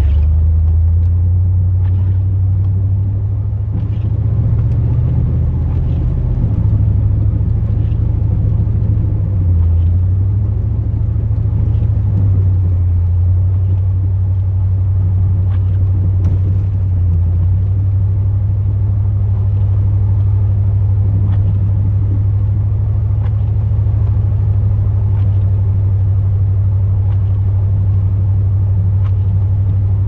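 Chevrolet Silverado pickup truck engine running with a steady low drone while driving, its pitch shifting slightly now and then. Faint ticks come about every two seconds.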